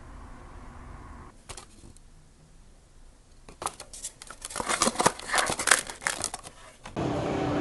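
An emptied plastic bento box and its lid being handled: a dense run of sharp plastic clicks, taps and crinkles about halfway through. Near the end it gives way to a steady background hum.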